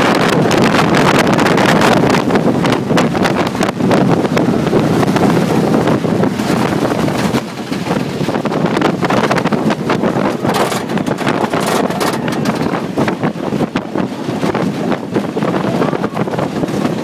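Wooden roller coaster train running fast along its track, rattling and clattering, with heavy wind rushing over the phone's microphone.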